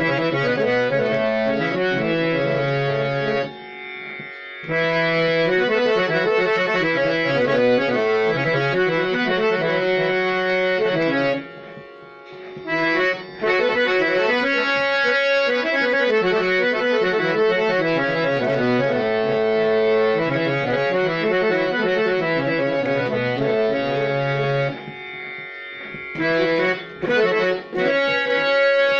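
Harmonium with three sets of reeds (male, male and female) being played: sustained reed chords under a moving melody, with several short breaks in the playing.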